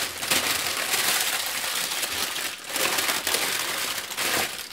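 Sheets of baking paper crinkling and rustling as hands fold and scrunch them tightly around a whole stuffed chicken, with a brief pause a little over halfway.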